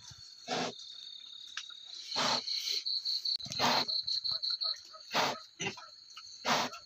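A sow in labour grunting in short, breathy bursts about every second and a half, five times, over a steady high chirring of crickets that pulses in the middle.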